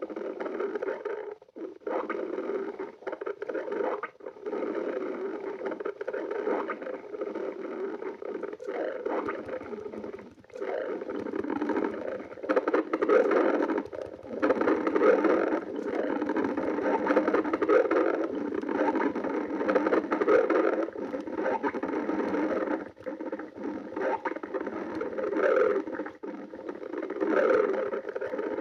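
A person's hungry stomach growling and gurgling: a long, nearly continuous rumbling churn with brief pauses every few seconds.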